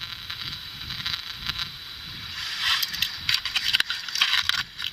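Steady electronic static hiss from a ghost-hunting device, with a few sharp clicks in the second half.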